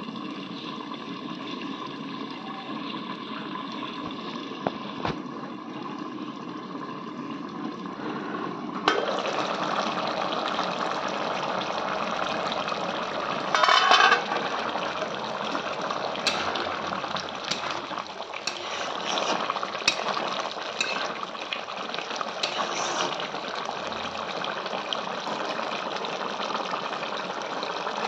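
Duck and potato curry boiling in a pan, a steady bubbling with scattered pops and spits. It is muffled under the lid at first and becomes louder and more open about nine seconds in, with a brief loud burst of noise near the middle.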